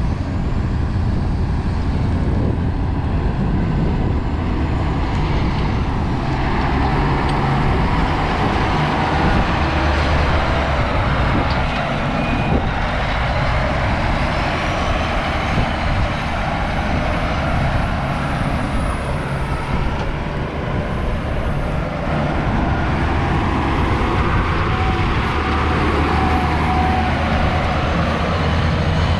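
Caterpillar 966F wheel loader's diesel engine running steadily as the loader drives and manoeuvres, with a deep, even engine hum.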